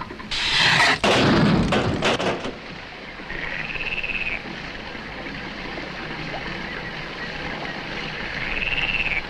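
A loud rushing noise for the first two seconds, then a frog croaking twice, each call a trill of about a second, the two about five seconds apart.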